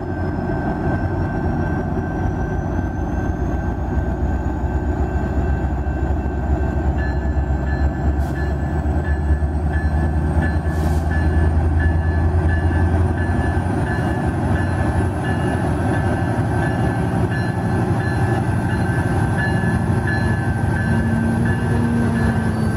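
HO scale model Amtrak diesel locomotive running as the train pulls away, a steady low hum under a thin high whine that climbs slowly in pitch as it speeds up.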